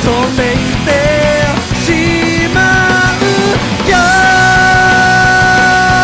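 Loud rock music from a full band, drums and guitars. The melody is a line of long held notes that bend at their ends, with one note sustained for about two seconds near the end.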